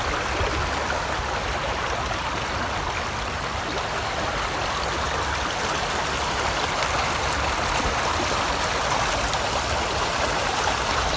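Swollen, muddy woodland stream running fast over its bed: a steady rushing of water.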